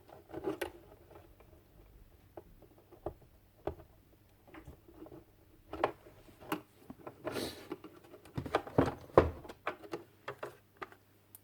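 Hands working small plastic parts and a repair on a site radio's casing: scattered clicks, taps and knocks, with a brief scrape about seven seconds in and the loudest knocks a little after.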